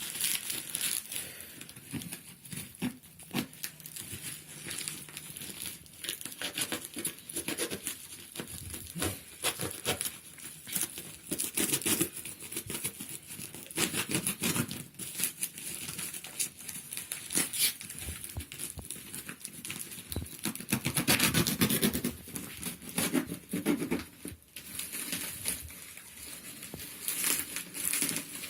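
Plastic packaging crinkling and rustling in irregular handling bursts, with some tearing, as knee and elbow guards are unpacked.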